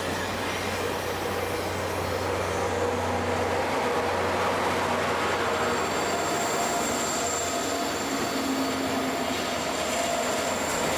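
Caltrain diesel train of gallery cars hauled by an F40PH locomotive rolling along, a steady rumble with a low hum in the first half and a faint high whine in the second half.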